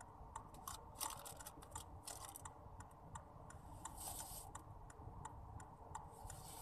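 Faint, irregular small clicks and rustles of something being handled, with a short rustle about four seconds in.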